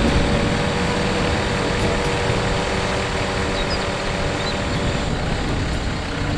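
The engine of a truck-mounted boom lift (aerial work platform) running steadily, driving the hydraulics as the boom slowly raises the basket, with a low rumble and a steady hum throughout.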